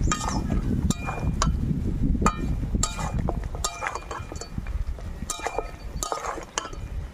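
Metal spatula scraping and clinking against a metal karai as chicken pieces are stirred and fried in spices, a ringing clink about every half second over a steady low rumble.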